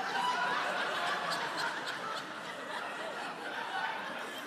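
A group of people laughing and chuckling, steady throughout.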